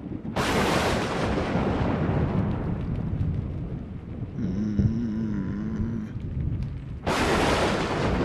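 Thunder: a sudden crack about half a second in that rumbles and fades over several seconds, then a second crack about seven seconds in. A brief wavering whine sounds between the two.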